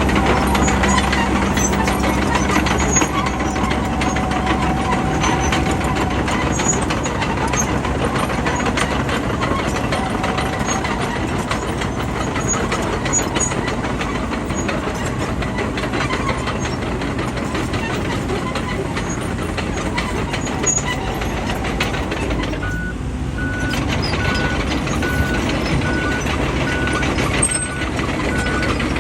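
Bulldozer's diesel engine running steadily at work. About twenty-two seconds in, a reversing alarm starts beeping evenly, about once a second.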